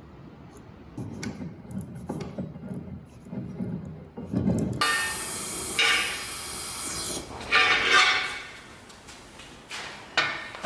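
Workshop handling sounds: metal and wood parts rubbed and shifted, then a steady hiss lasting about two seconds, followed by a few sharp knocks.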